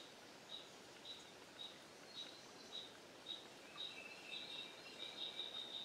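Faint high chirps repeating about twice a second, running into a steady trill in the last couple of seconds, over a soft outdoor hiss.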